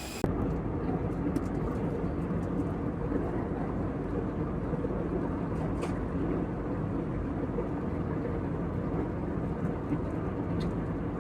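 Steady low rumble of a moving vehicle heard from inside it, starting abruptly just after the start, with a few faint clicks.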